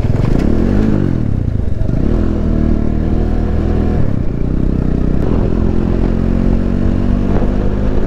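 Motorcycle engine running while riding, its revs rising and falling about a second in, then holding a steady pitch.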